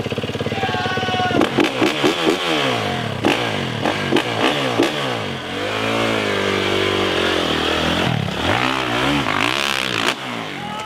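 Dirt bike engine revving up and down in quick throttle blips, then swelling and holding a higher note for a couple of seconds before more short blips, with a few knocks.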